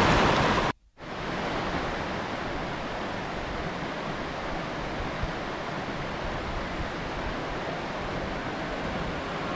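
Mountain river rushing over a stony bed. A loud, close rush of rapids cuts off abruptly just under a second in, and after a brief silence a steadier, quieter river rush carries on.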